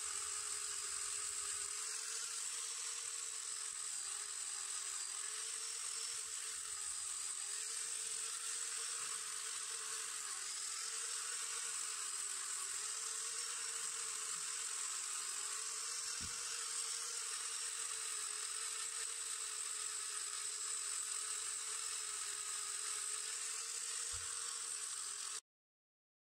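Electric angle grinder with an abrasive stripping wheel, running steadily with a high whine as it strips rust from a chrome moped luggage rack. The sound cuts off suddenly near the end.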